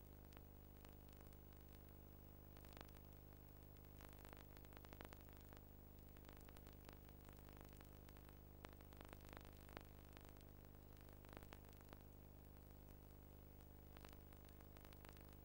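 Near silence: a faint steady low electrical hum with scattered faint clicks and crackles.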